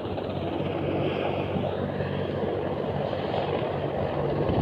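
Helicopter running steadily: an even rushing noise with a low hum underneath.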